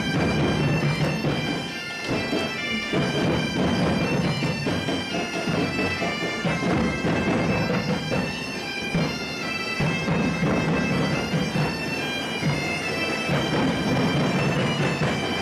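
Several Portuguese bagpipes (gaitas de foles) playing a melody together over a steady drone, with bass drums (bombos) beating along underneath.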